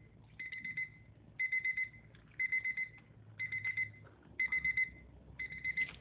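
Digital timer alarm beeping in groups of about four quick high beeps, one group a second, over and over: the signal that the 15 minutes of immersion are up.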